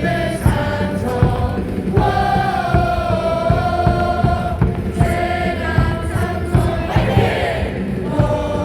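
Baseball crowd singing a cheer song in unison along with music over the stadium speakers, with a steady beat.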